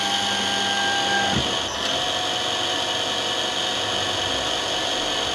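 DM-200 lens drilling machine's drill motor running with a steady high whine. A lower hum underneath stops about a second and a half in, as the tone of the machine shifts.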